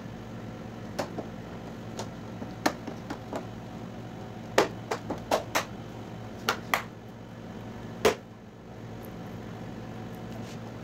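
Plastic front bezel of an LED TV snapping onto the panel as it is pressed down around the edge: a string of about a dozen short sharp clicks, irregularly spaced, the loudest near the end, over a steady low hum.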